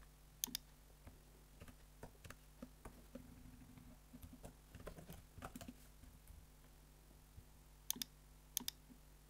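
Faint computer keyboard typing: scattered single keystrokes, then a few sharper mouse clicks near the end.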